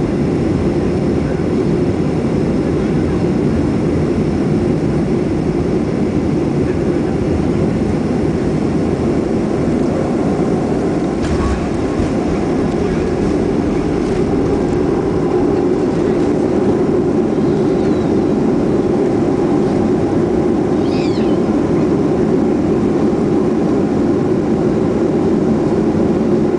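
Cabin noise of a jet airliner landing: a steady roar of engines and airflow, a thump of touchdown about eleven seconds in, then the roar growing slightly louder on the runway rollout under full engine power and hard braking.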